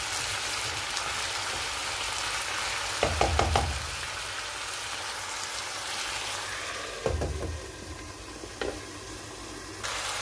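Chicken, chayote, onion and red bell pepper sizzling in a pan as they are stirred with a spatula, with a few short clusters of knocks and clatters from the stirring. The sizzle thins out in the second half and stops just before the end.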